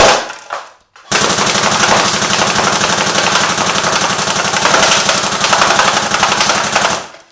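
Airsoft M4 rifle firing full-auto at a tin can, with the BBs striking and ripping through the can. A short burst ends just after the start; about a second later a long burst runs for about six seconds.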